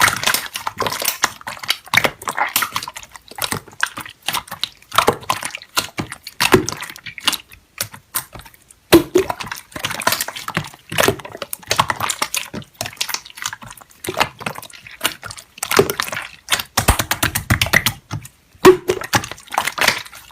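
Slime being squeezed and poked: a run of wet clicks and small pops coming in uneven clusters with short pauses between them.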